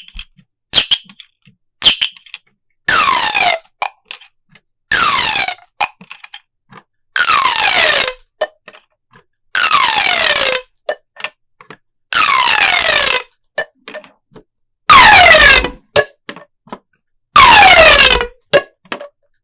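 Plastic pop tubes being stretched seven times, each stretch a noisy, crackling pull of about a second with a pitch that falls steadily. Short sharp clicks and pops come between the stretches.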